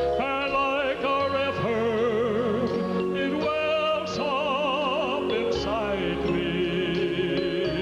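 A man singing a solo with wide vibrato into a handheld microphone, over instrumental accompaniment holding long low notes.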